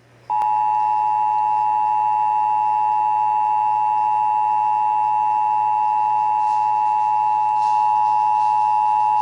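Emergency Alert System attention signal: the two-tone alert, two steady high tones sounded together, announcing an EAS test message. It starts just after the beginning, holds at a steady level for about nine seconds and cuts off sharply near the end.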